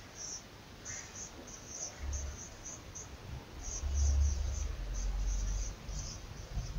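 Dry-erase marker squeaking on a whiteboard while a word is written: many short, high-pitched squeaks, irregularly spaced, with a low rumble under them around the middle.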